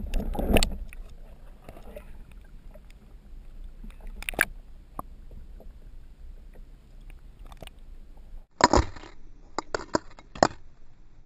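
Muffled underwater sound picked up by a submerged camera: a low steady rumble of water, a loud splashy burst at the start, a sharp knock about four seconds in, and a cluster of knocks and bursts in the last three seconds.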